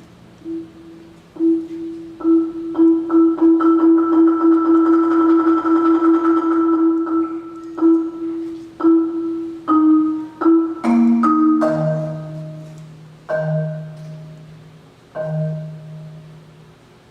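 Children's percussion ensemble playing mallet percussion: a sustained rapid roll on one note swells and fades, then separate struck notes give way to three low notes that ring out and die away, closing the piece.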